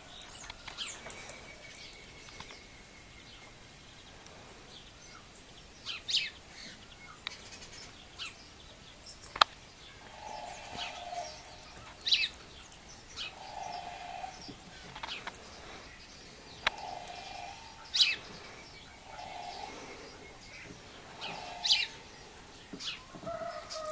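Sparrows chirping: short, sharp falling chirps every few seconds. From about ten seconds in, a lower hooting call repeats about every two to three seconds behind them, and there is one sharp click about nine seconds in.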